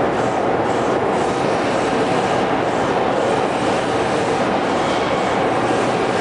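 Hydraulic system of a 60 MN open die forging press running, a loud, steady mechanical noise with no separate knocks or strokes.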